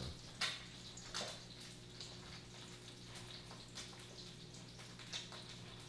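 Faint kitchen room tone: a low steady hum under a soft hiss, with a few light clicks.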